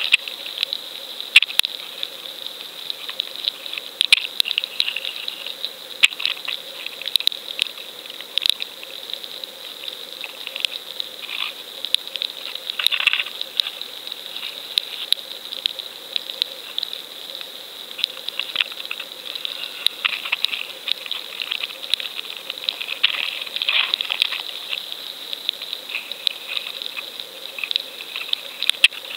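Underwater ambience heard through a camera's waterproof housing: a steady hiss with frequent sharp clicks and crackles, and two brief louder swishing rushes, one about halfway through and one about four-fifths of the way through.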